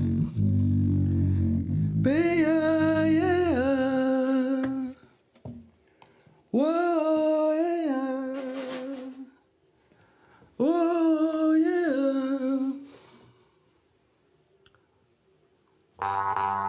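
A solo voice hums three long held notes, each scooping up at the start, with short quiet gaps between. The song's accompaniment drops out about two seconds in, and new music starts just before the end.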